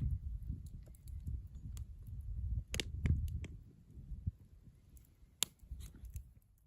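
Scattered sharp clicks and crackles over a low rumble, dying away near the end.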